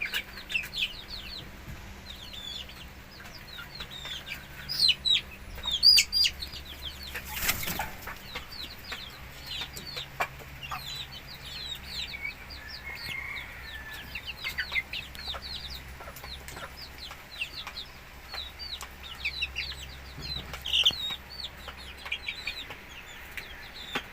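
Chickens calling: many short, high, falling peeps and clucks overlapping throughout, with a brief rustling burst about seven and a half seconds in.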